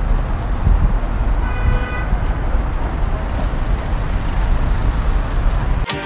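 Steady city road traffic noise, with a car horn sounding one short honk about one and a half seconds in.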